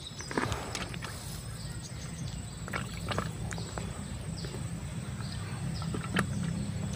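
Outdoor riverbank ambience: a low steady hum with scattered faint clicks and a few short high chirps.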